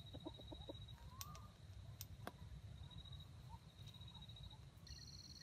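Near silence: faint field ambience with a steady high insect whine, a second pulsing one joining near the end, a few soft chirps and a few clicks. The rooster does not crow.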